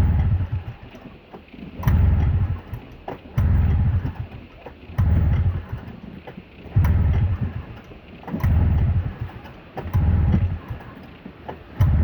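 Snowmobile engine being pull-started over and over, about eight pulls in a steady rhythm, turning over each time without catching: the sled won't start.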